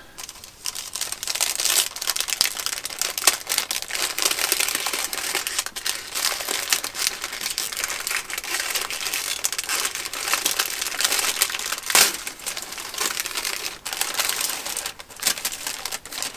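Packing wrap being pulled off a new electric guitar, crinkling and rustling continuously with many small crackles and one sharper crackle about twelve seconds in.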